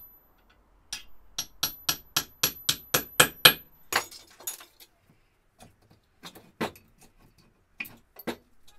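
A hammer tapping a centre punch to drive a brake-pad retaining pin out of a Brembo four-piston caliper: about a dozen quick, ringing metal-on-metal taps, about four or five a second, growing louder. Then a brief scraping rattle and a few scattered metallic clinks as the loosened pin and pads are handled.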